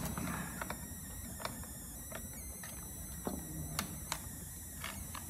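Scattered light clicks and taps of hard plastic as hands handle cables and a connector around a massage chair's white plastic roller gearbox housings.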